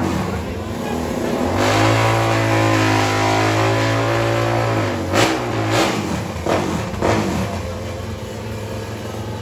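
Drag-racing motorcycle engine revving at the start line: held at high revs for about three seconds, then blipped sharply three or four times about half a second apart.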